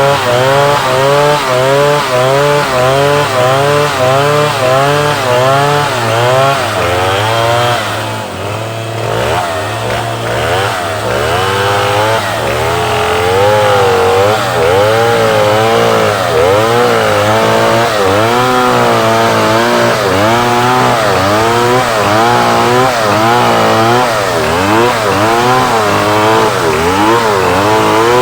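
Two-stroke chainsaw running at high revs while cutting wood, its engine pitch wavering up and down as the chain loads and frees in the cut. The sound eases briefly about eight seconds in, then picks up again, over a steadier low drone.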